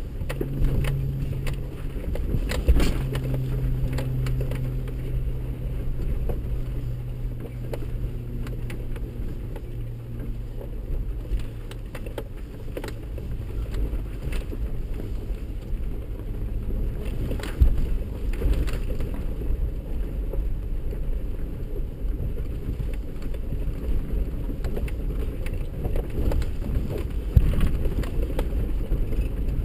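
Inside the cab of a 4x4 crawling over a rocky mountain trail: a low engine and drivetrain rumble, its hum fading over the first ten seconds or so, with scattered knocks and rattles as the vehicle jolts over rocks.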